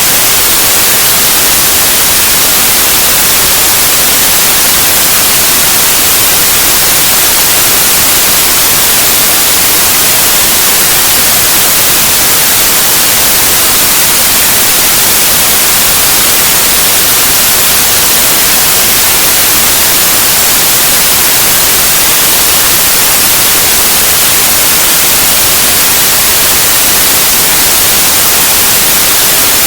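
White noise: a loud, steady, unchanging hiss, strongest in the high end.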